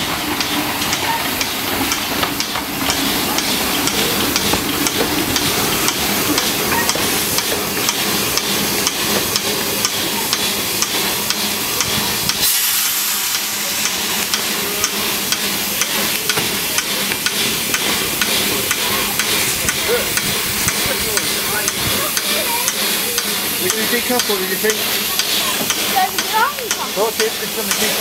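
Orenstein & Koppel narrow-gauge steam locomotive Elf running past with its train: a dense hiss of steam with a constant fine clicking and crackling from the running gear and wheels on the rails. The sound changes suddenly about halfway through.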